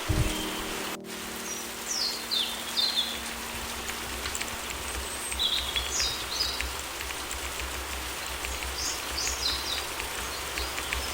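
Steady rain falling, with several groups of short, high, falling bird chirps. A low piano chord rings at the start and fades away over the first few seconds.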